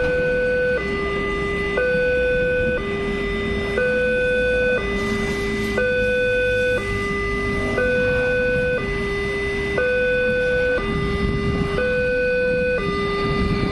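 Railroad level-crossing electronic warning alarm sounding its two-tone signal, a higher and a lower tone alternating about once a second each, warning that a train is coming. A low rumble grows under it near the end.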